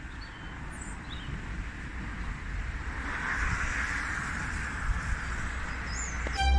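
Street traffic noise: a steady hiss and rumble that swells as a vehicle passes about three seconds in, with a few faint bird chirps.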